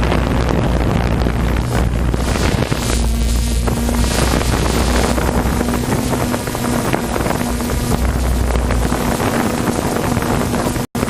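Personal watercraft engines running at speed, with heavy wind buffeting on the microphone. The sound cuts out for an instant near the end.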